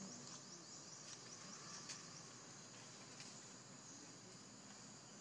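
Faint, steady high-pitched chorus of insects, with a rapid trilling pulse in the first two seconds and a few faint clicks.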